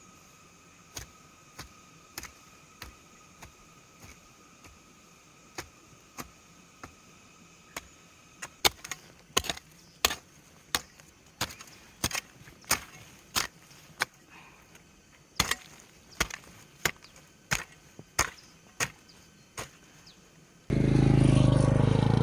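A steady rhythm of chopping strikes, about one or two a second, growing louder after about eight seconds. Insects shrill steadily under the first part. Near the end a loud, steady low sound cuts in abruptly.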